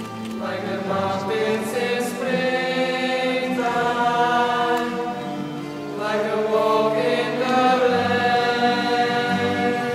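Mixed youth choir singing slow, held chords that move from one to the next every second or so.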